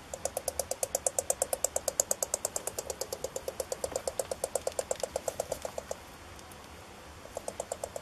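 North American porcupine chattering its teeth in a fast, even run of clicks, about ten a second, the warning display of a disturbed porcupine. The clicking stops just before six seconds in, and a short run starts again near the end.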